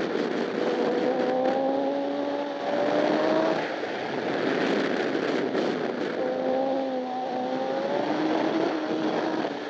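Honda CBR1000RR superbike's inline-four engine heard onboard at racing speed under heavy wind rush. Its pitch climbs for about three seconds, then cuts off, and climbs again about six seconds in.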